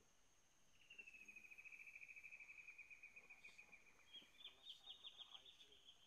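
Faint animal calls in the forest: a rapid pulsed trill sliding slightly down in pitch, then a higher trill taking over about four seconds in, over a steady thin high whine.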